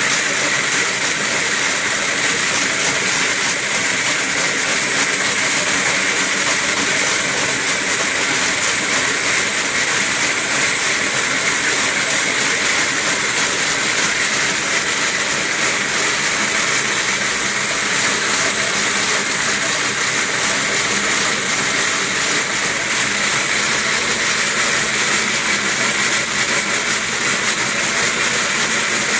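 Wooden slat mill running steadily under a running dog, its slats and rollers making a continuous rolling clatter.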